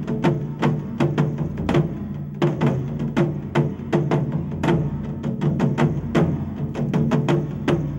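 Japanese taiko drums struck with bachi sticks by three players, including a large drum on a tall stand: a fast, driving run of sharp strikes over the ringing of the drumheads.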